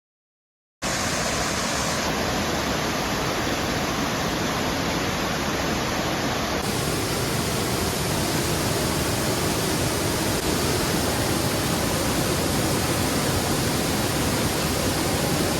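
Waterfall: a loud, steady rush of falling water that starts abruptly about a second in.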